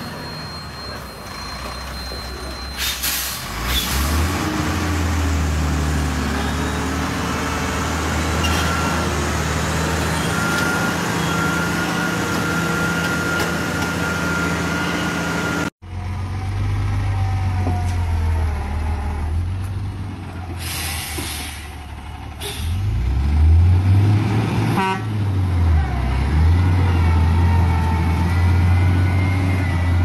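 Heavy diesel dump trucks running under load at low speed, a steady low engine drone, with short hisses of air near the start and about two-thirds through. Near the end the engine pitch swings up and down as it revs.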